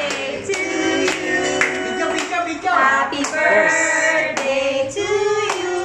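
Voices singing a birthday song together over a steady beat of about two strokes a second.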